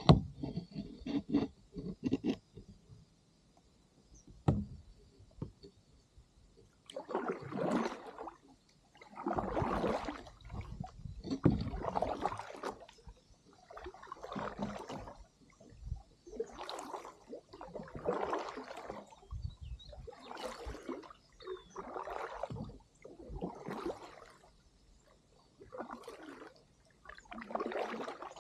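Kayak paddle strokes pulling through river water, a regular swish about every one and a half to two seconds, starting about seven seconds in. Before that there are a few light knocks.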